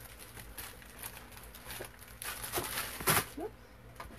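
Handling noises on a desk: paper and objects being rustled and moved, with a sharp knock about three seconds in and a brief squeak or two just after.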